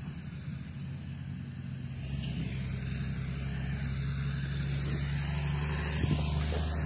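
A steady low engine hum from an unseen motor vehicle, slowly growing louder.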